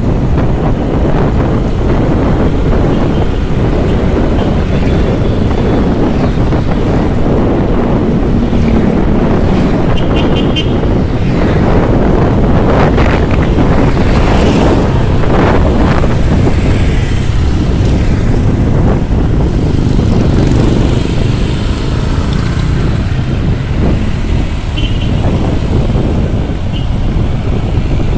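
Wind rushing over the microphone of a moving motorcycle, over its running engine and the road traffic around it. Short high beeps sound about ten seconds in and again near the end.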